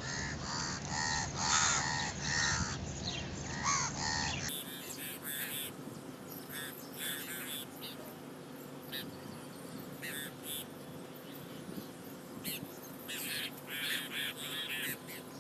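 A flock of crows cawing, many short calls one after another and sometimes overlapping, as they gather to be fed. The calls are busiest in the first few seconds and again near the end.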